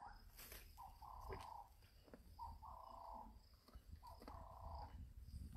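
An animal calling faintly over and over, about once every second and a half, each call a short note followed by a longer one.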